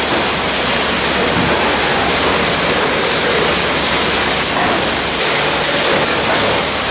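Bakery bread line's conveyors and crate-handling machinery running: a loud, steady, even machine noise with no separate knocks or bangs.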